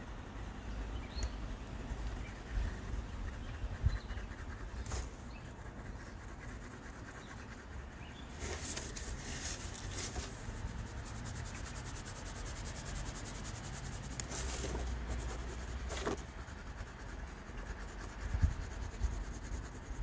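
Colored pencil rubbing lightly over drawing paper in cross-hatching strokes. The paper sheet slides and rustles as it is turned, with a few brighter scrapes about halfway through.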